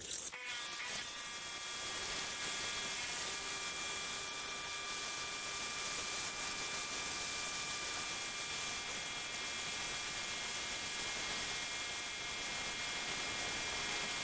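Kärcher K4 electric pressure washer on a test run after its rebuild: the motor and pump whine over a steady hiss. The whine rises in pitch as it spins up in the first second, then holds steady, the machine running properly with its leaks fixed.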